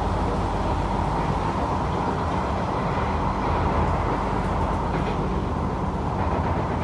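SMRT C751B metro train running at a steady speed between stations, heard inside the passenger car: a steady rumble of wheels on rail with an even mid-pitched hum.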